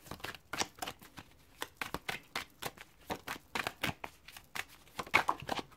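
A tarot deck being shuffled by hand: an irregular run of quick, soft card slaps and flicks.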